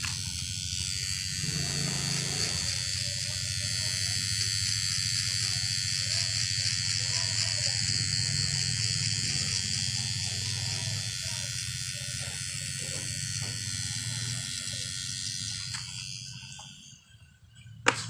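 Cordless metal-bodied hair trimmer buzzing steadily as it cuts hair, then fading out about a second before the end. A single sharp click follows near the end.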